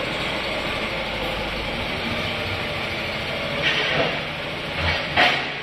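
Setra S 417 UL coach's diesel engine idling steadily, with a few short, sharper sounds near the end.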